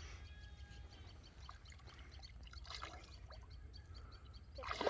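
Faint river water trickling and splashing over a low steady rumble, with a louder burst of sound just at the end.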